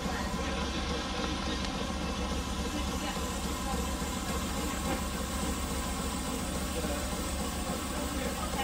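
Vee-twin steam engine of a steam yacht (7-inch cylinders, 8-inch stroke, slip-eccentric valve gear) running steadily under way, with the even mechanical clatter of its moving rods and valve gear.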